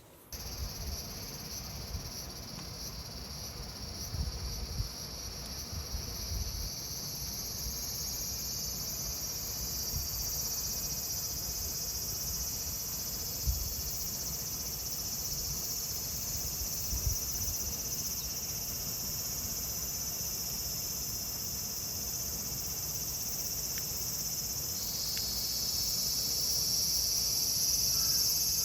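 Cicadas calling in a steady high buzz that swells slowly, with a second, lower-pitched buzz joining near the end. Faint pops and crackles of burning firewood come through underneath, the clearest twice around the middle.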